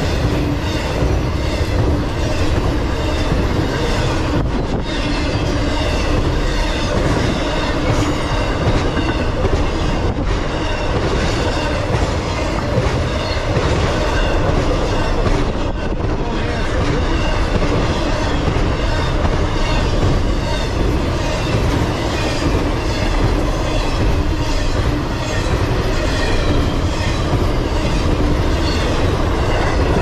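Double-stack intermodal freight cars rolling past at steady speed: a continuous rumble of steel wheels on rail, with the clickety-clack of wheels over the rail joints.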